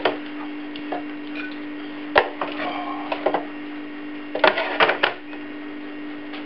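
Plastic serving spoon scraping and knocking against the Tefal ActiFry's cooking pan and a plate as chips and sausages are dished out: scattered clicks and clatters, the sharpest about two seconds in and a quick cluster around four and a half to five seconds, over a steady low hum.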